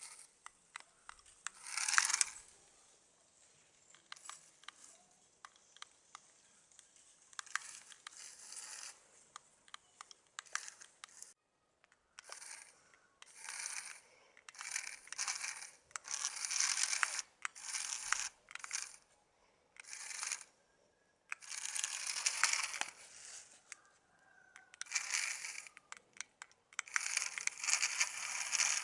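Small wooden-kit RC car driven in short stop-start runs over rough ground: repeated bursts of its wheels crunching and scraping on the dirt, each lasting up to about two seconds, with pauses between and a longer run near the end.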